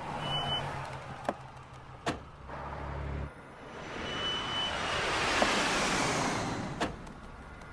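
Car sound effects: a taxi pulls up and idles with a low hum, with two sharp car-door knocks in the first couple of seconds. Then a jet airliner passes over with a long noise that swells and fades, and a car door shuts near the end.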